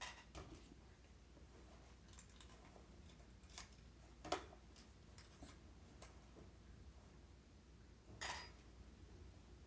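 A few scattered small clicks and taps over near silence, the sharpest about four seconds in and another near the end, from hand work on a wheelchair caster bearing.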